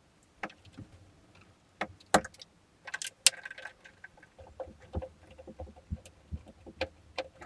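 Irregular light clicks, taps and knocks of hand tools and hardware being handled while an old boat switch panel is taken out, with two sharper clicks about two and three seconds in.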